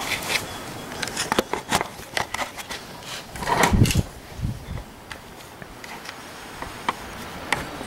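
Gloved hands handling a rubber serpentine belt among engine-bay parts: a run of small clicks and knocks, a louder scuffing noise near the middle, then only a few faint ticks.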